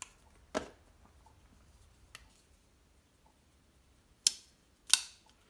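Black Legion spring-assisted stiletto folding knives snapping open, the blades locking with sharp metallic clicks. There is a softer click about half a second in, then two loud clicks about half a second apart near the end.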